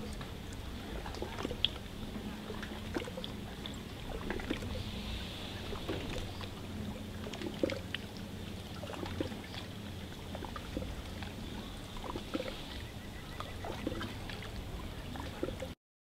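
Water lapping and gurgling against a small boat's hull in small irregular ticks, over a steady low hum; the sound cuts off abruptly just before the end.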